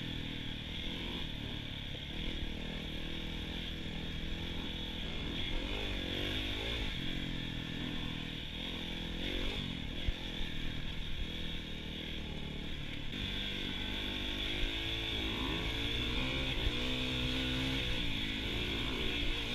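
Dirt bike engine running under way, its revs rising and falling as the throttle is worked, with a few sharp knocks along the way.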